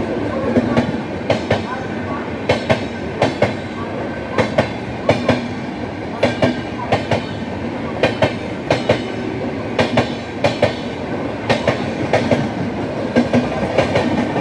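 Train wheels running over rail joints: a steady rumble with sharp clickety-clack clicks, mostly in pairs, repeating every half second to a second.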